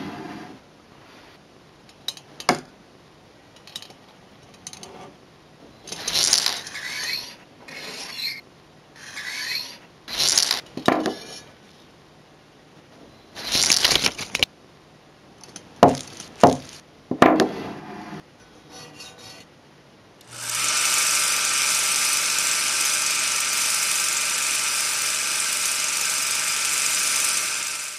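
Irregular short scrapes, rubs and sharp clicks, some brief and some a second or so long. About twenty seconds in, they give way to a steady, loud whirring hiss with a low hum under it, which cuts off suddenly at the end.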